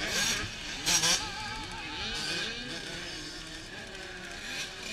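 Several small dirt bike engines revving up and down on the track, their pitches rising and falling over one another, with a short burst of noise about a second in.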